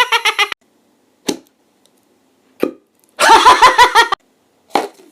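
A person's voice making mouth sound effects that imitate objects. A fast run of repeated pitched syllables falls in pitch and cuts off sharply about half a second in. Two short clicks follow, then about a second of another rapid string of repeated syllables, and a last click near the end.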